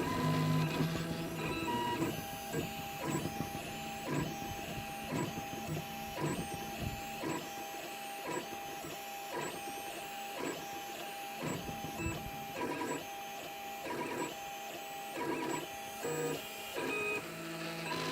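3D printer's stepper motors driving a pen as a plotter: a quick series of short moves, roughly one to two a second, over a steady whine.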